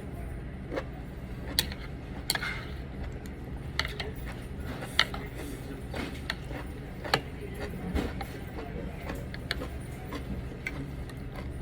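Eating utensils clicking and clinking against a bowl of pho, about ten light, irregular strikes, over a steady low background hum.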